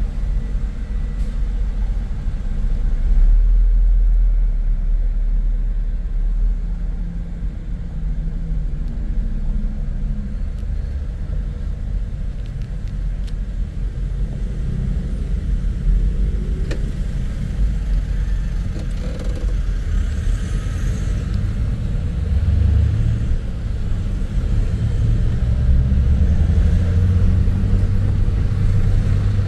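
Low, steady car rumble heard from inside the cabin as the car sits in slow city traffic, growing stronger in the last third as it gets moving.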